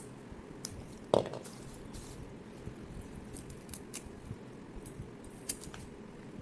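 Scattered light clicks and handling sounds of hands working with something at a table, with one sharper click about a second in, over a low steady background hum.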